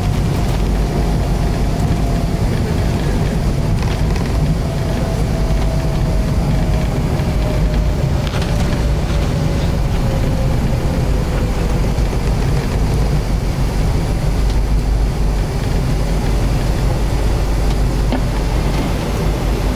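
Inside the cabin of an Avro RJ100 rolling on the ground after landing, there is a steady low rumble of the airframe and the engines. A turbofan whine slowly falls in pitch as the engines wind down toward idle.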